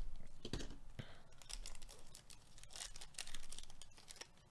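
Foil wrapper of a Panini Chronicles baseball card pack torn open by hand: a sharp rip at the start, then irregular crinkling and rustling as the wrapper is peeled back and the cards slid out.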